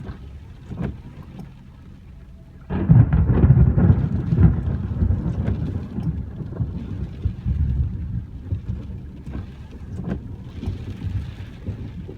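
Thunder: a loud low rumble breaks out suddenly about three seconds in and rolls on, slowly fading, through the rest of the clip, with rain falling and a few sharp ticks.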